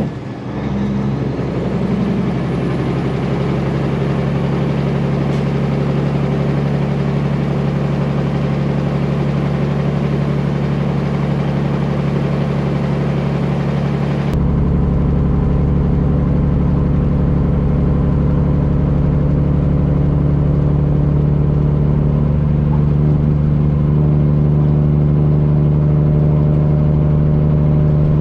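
Peterbilt semi's straight-piped Cummins diesel running steadily down the road, a loud even drone. Its loudness dips briefly right at the start. About halfway through the sound changes abruptly to a louder, lower drone that holds steady.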